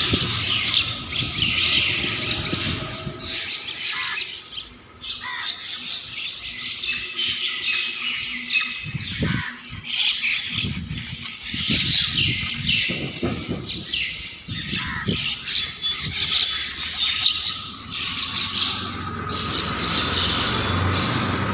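A flock of birds calling over one another, with repeated squawks and chirps throughout.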